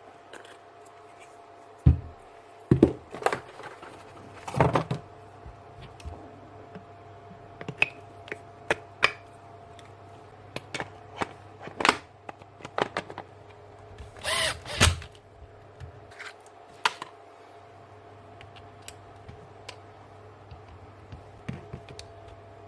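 Irregular clicks, taps and knocks of small parts being handled and fitted while a Makita DHP202 cordless hammer drill is worked on during an armature change, with a louder cluster a little past the middle, over a faint steady hum.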